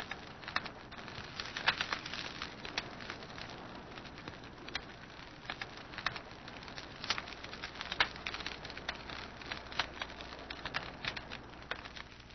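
Irregular crackling clicks and pops over a steady hiss, thinning out near the end.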